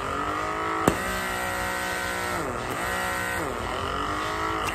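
Motor of a handheld blackhead vacuum-suction device (Deerma Dermasuction) running with a steady whine while its nozzle is held to a fingertip. The pitch dips and recovers twice, about halfway through and again a second later. A single sharp click about a second in.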